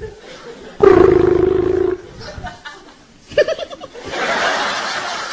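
A loud, drawn-out yell or roar from a man lasting about a second, then a quick burst of laughter, then a steady noisy commotion.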